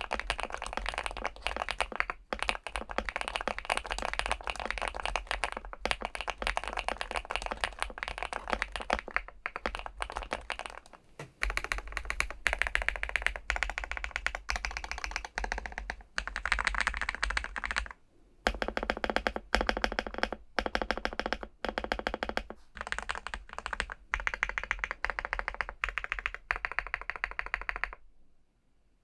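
Weikav Stars75s mechanical keyboard, with an aluminium case and PBT keycaps, being typed on fast: a dense run of key clicks with a few short pauses, stopping about a second before the end.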